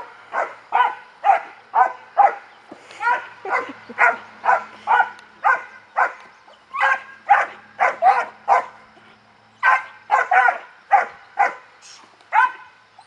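A 3.5-month-old German shepherd puppy barking over and over, about two barks a second in volleys with brief pauses, at a helper teasing her with a bite rag in protection training.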